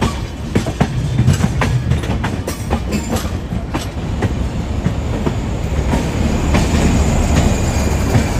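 Passenger train coach wheels clattering over rail joints and points, heard from an open coach doorway. Sharp clacks come thick in the first few seconds over a heavy rumble, which grows louder and steadier toward the end.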